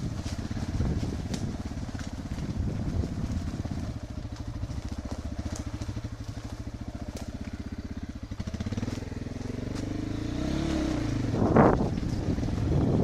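Enduro motorcycle engine running at low revs with a steady pulse. It revs up and down about nine seconds in, and a sharp throttle burst follows near the end. Scattered sharp clicks and cracks run through it.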